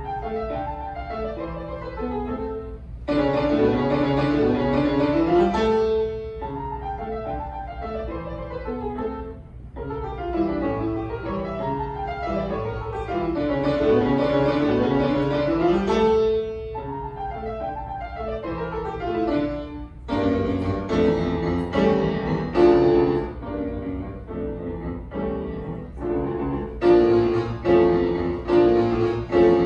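Solo grand piano being played, with runs of notes sweeping down and back up. From about twenty seconds in it changes to more separate, sharply struck notes and chords.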